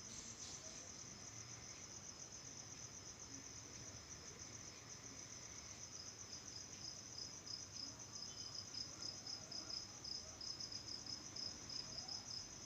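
Crickets chirping in a steady, fast, even pulse, faint in the background.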